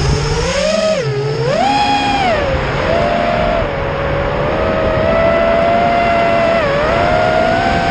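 Brushless motors and propellers of a 3D-printed Birdbone Helium 210-size FPV quadcopter, heard from its onboard camera, whining at a pitch that rises and falls with the throttle. The pitch climbs, dips about a second in and climbs again, holds fairly steady through the middle, then dips again near the end.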